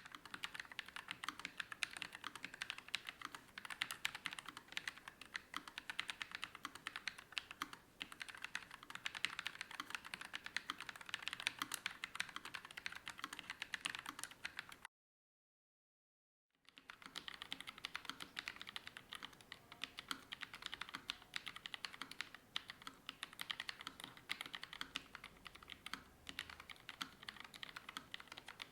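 Continuous fast typing on a NuPhy Air96 low-profile mechanical keyboard with Gateron low-profile switches: a dense run of light, crisp key clicks. About halfway through the typing cuts off to dead silence for about a second and a half, then starts again.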